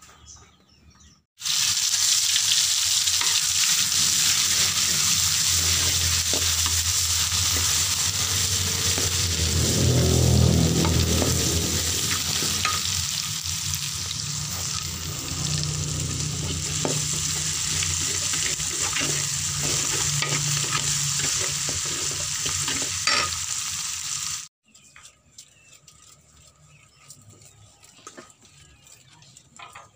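Fried rice sizzling in a wok as a metal spatula stirs it, scraping and clicking against the pan. It starts suddenly about a second and a half in and cuts off suddenly a few seconds before the end. Before and after it there is only faint, quiet sound.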